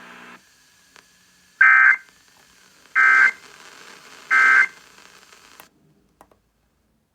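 Emergency Alert System end-of-message data bursts: three short, buzzy tone bursts about 1.3 seconds apart, the SAME 'NNNN' signal that closes a tornado warning broadcast.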